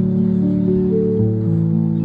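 Background music: a slow, gentle instrumental melody of held notes.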